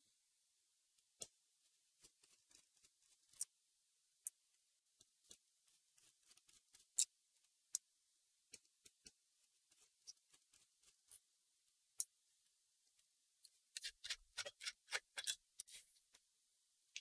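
Faint, scattered small clicks and ticks of hand tools and screws being worked at a laptop's hard-drive bay, with a quicker run of clicks near the end.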